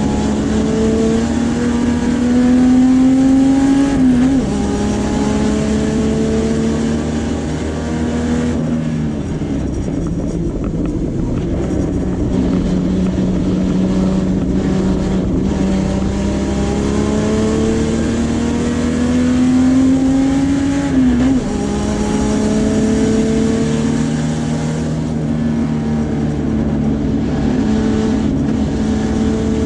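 Puma GTB race car's straight-six engine at full throttle, heard from inside the cockpit, pitch climbing steadily through each gear and dropping sharply at upshifts about four seconds in and again about twenty-one seconds in. Between about nine and twelve seconds it runs lower and duller as the car slows for a corner.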